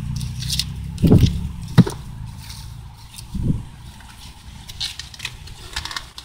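Corn leaves and husks rustling and crackling as someone moves through the cornstalks, with a few sharper snaps. A low rumble underneath fades out after about two seconds.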